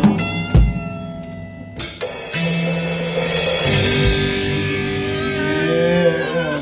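Improvised garage-rock band playing: a drum hit, then a cymbal crash about two seconds in that rings on under held guitar notes, which bend and slide near the end.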